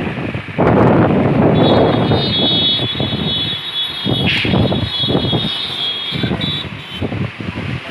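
Strong storm wind gusting against the microphone in rising and falling surges. A steady high-pitched whine runs through it from about a second and a half in until near the end.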